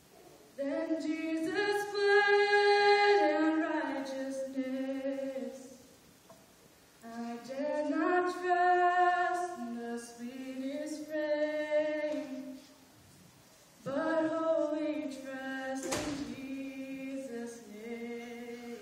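A woman singing solo and unaccompanied into a microphone, in three long sustained phrases with short pauses for breath between them.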